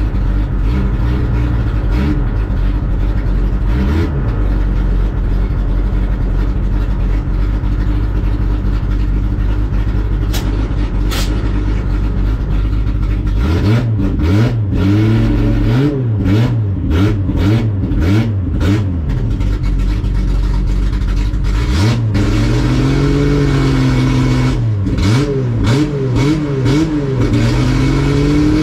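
Nissan S30 Fairlady Z drag car's naturally aspirated L-series straight-six, heard from inside the cabin, idling roughly with two short blips. After about thirteen seconds it is revved in a run of quick blips, then brought up and held at a higher speed, with more blips before it is held high again near the end: the car is being staged on the start line for a launch.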